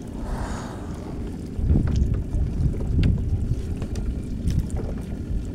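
Wind buffeting the microphone in gusts, a low uneven rumble that grows stronger about a second and a half in, with a few small sharp knocks of handling.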